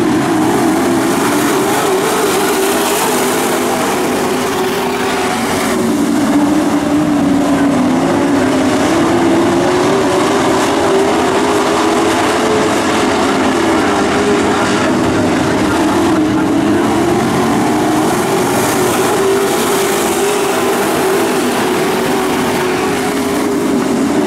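A pack of dirt-track race trucks running hard around the oval, the engines a steady, loud drone whose pitch rises and falls as the field goes around.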